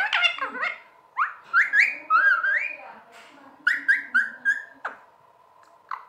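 Rose-ringed parakeet giving quick runs of whistles and chirps, many rising in pitch, in three bursts with short pauses between and one falling whistle near the end.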